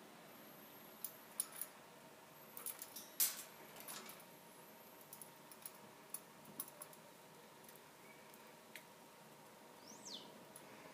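Budgerigars at a stainless food bowl and on their cage: scattered faint clicks and taps of beaks cracking seed and pecking at the bowl, with one brief high downward chirp near the end.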